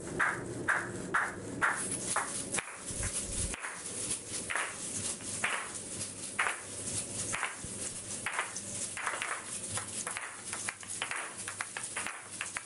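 Asalato (kashaka) clacking: sharp clicks of the hard shells striking together, about two a second at first and then in an irregular pattern, over a low steady rumble.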